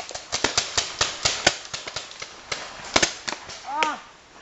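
Paintball markers firing in a game, rapid irregular pops, several a second, with a brief shout just before the end.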